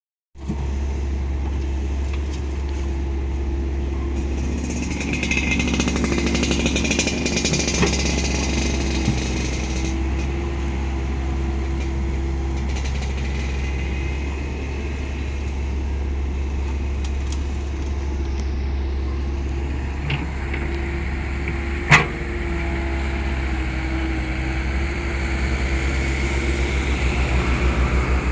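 Heavy diesel engine running steadily, with a single sharp knock about 22 seconds in and the engine growing a little louder near the end.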